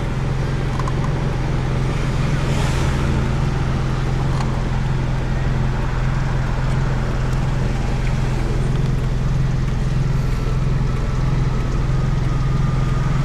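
Car cabin noise from inside a passenger car: a steady low engine hum with road and traffic noise.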